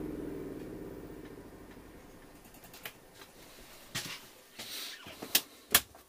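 Cummins 4 kW RV generator winding down after being switched off. Its hum falls in pitch and fades away over about two to three seconds, and a few light clicks and knocks follow near the end.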